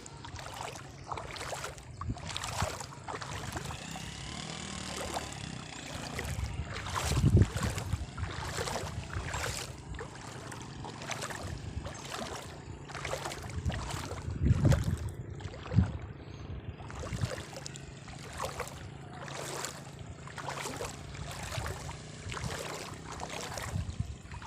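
Floodwater splashing over and over in irregular strokes, over a steady low hum, with a couple of louder low sloshes.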